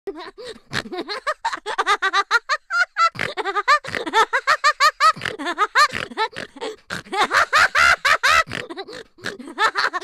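Hearty laughter in quick, repeated bursts.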